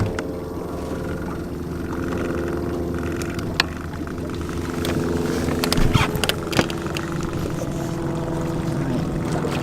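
Small boat motor running steadily while trolling, with a few sharp knocks about halfway through.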